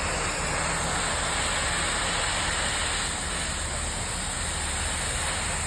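Steady hissing roar of a gas cutting torch cutting through a steel girder, even throughout with no knocks or breaks.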